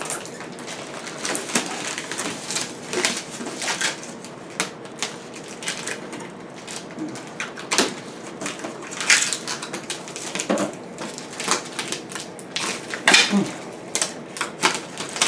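Irregular crackling, scraping and rubbing of protective plastic film being pulled and worked off a stainless steel refrigerator.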